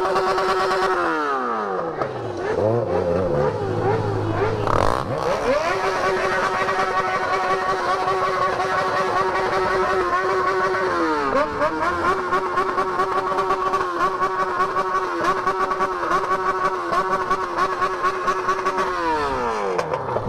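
Motorcycle's straight-piped inline-four engine, a Yamaha XJ6 with no muffler, revved hard and held steady at high revs. It drops back after about a second and blips a few times, then climbs again and holds for about thirteen seconds with one short dip midway, before falling back near the end.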